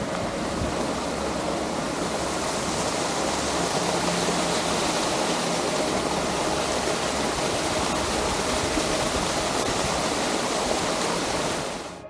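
Waterfall's falling water making a steady, even rush that cuts off at the very end.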